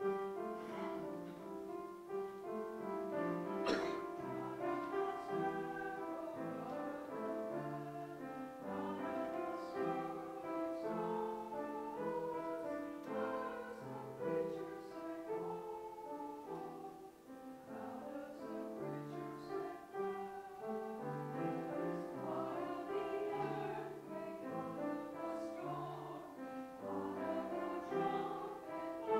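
Slow classical-style church music: voices singing with piano accompaniment, beginning abruptly.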